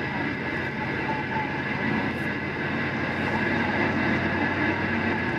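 Steady road and engine noise heard inside a car cruising on an expressway, an even rumble and hiss with a few faint steady tones.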